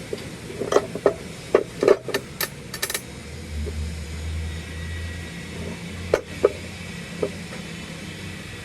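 Workshop repair work: a quick run of sharp knocks in the first three seconds, then a few more a few seconds later. A low hum swells for a couple of seconds in the middle.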